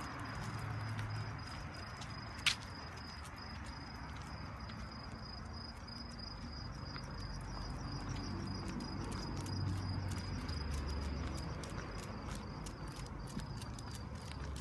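Crickets trilling in a steady, high-pitched pulsing drone over a low rumble, with one sharp click about two and a half seconds in.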